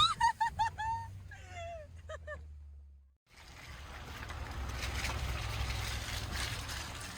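A quick run of short animal calls, each a brief rise and fall in pitch, about five in the first second and a few more after, then they stop. After a brief cut to silence, a steady rushing noise follows.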